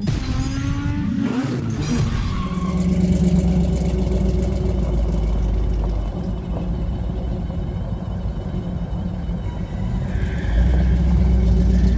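1979 Fiat 124 Spider 2000's two-litre twin-cam four on dual 44 IDF carburettors revving up at the start, then running steadily, a little louder near the end.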